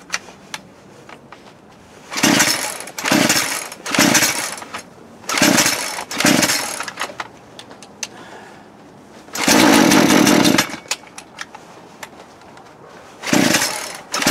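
Poulan Pro PP4218A 42cc two-stroke chainsaw being pull-started on choke. The recoil starter is yanked about seven times, each pull a short burst of noise, with one longer burst about ten seconds in.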